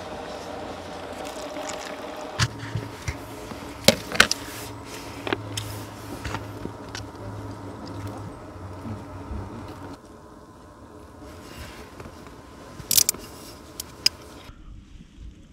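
Scattered clicks and light scrapes of utensils and food containers as a meal is prepared, with instant tofu-egg soup being stirred in a paper cup. Under them runs a steady low hum that drops away about ten seconds in.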